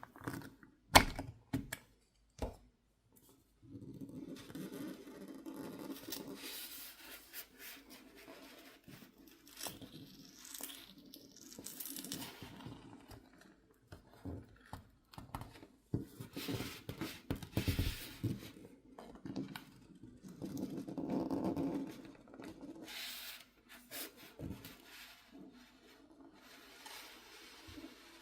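A phone's glued glass backplate being pried off with a pry tool: a few sharp clicks, then irregular scraping and tearing as the softened adhesive lets go, swelling and fading in uneven gusts.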